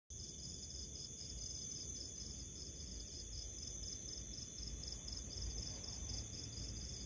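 House cricket chirping in an even, rapid series of short high-pitched pulses, about four a second, over a steady high ringing tone.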